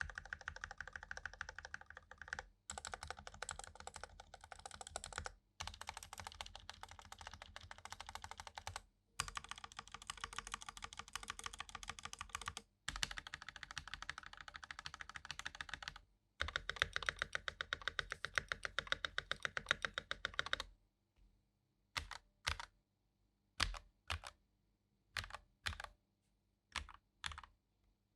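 Sades Kunai mechanical keyboard with Gateron Pro Yellow linear switches and Ruf Serra keycaps being typed on fast, in long runs of rapid keystrokes broken by short pauses. Near the end the runs stop, and only separate single key presses are heard, a few at a time.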